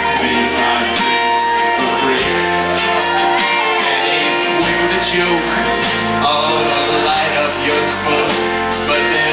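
Live band playing a slow rock ballad: strummed acoustic guitar over bass notes that change every second or two, with a melody line on top.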